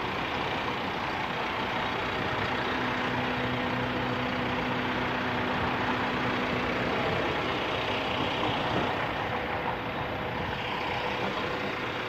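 Flatbed tow truck's engine running at a steady idle.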